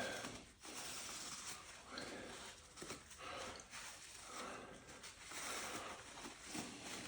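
Faint, repeated rubbing swishes, about one a second, of paper towel wiping old grease out of the ratchet seat inside a DT Swiss bicycle hub.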